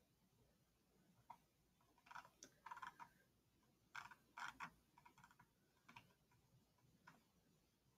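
Faint clicking of computer keys, in small irregular clusters separated by near silence.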